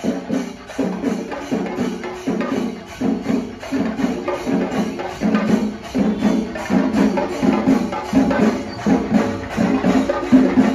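Percussion music: drums struck in a fast, steady rhythm.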